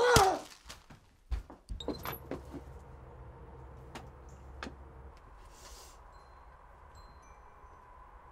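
A short, loud falling squeak at the start, then a door thumping open, followed by a steady low hum with a few faint clicks.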